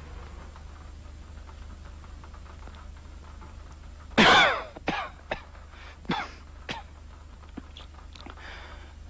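A man coughing: one loud, harsh cough about four seconds in, then a run of five shorter, weaker coughs over the next few seconds, over a steady low hum.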